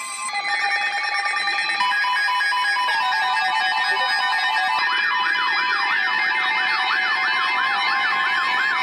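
Layered electronic alert tones: several steady tones and beeping tones, joined about five seconds in by a siren-like warble sweeping up and down about three times a second.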